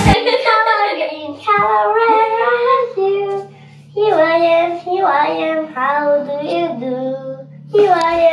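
A child singing a short sung phrase of a children's song, in several breaths, over a faint steady low hum.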